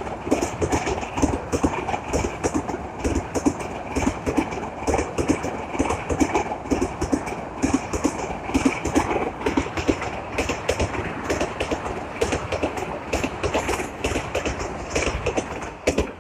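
Railway cars rolling past, their wheels clattering over the rail joints in a quick, steady clickety-clack; the sound drops away suddenly at the end.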